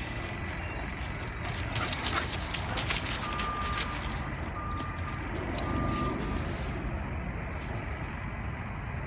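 Footsteps and a dog's paws crunching and rustling through dry fallen leaves, loudest in a burst of crackles about two seconds in, over a steady low rumble.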